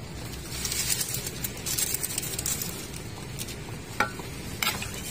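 Chopped chicken sizzling in margarine in a pan, with a hiss between about one and three seconds in. A metal spatula clicks and scrapes against the pan a couple of times near the end as the seasoning is stirred in.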